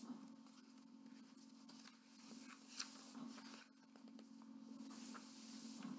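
Faint rustling and sliding of picture book pages as the book is opened and a page turned, with a few light taps, over a steady low hum.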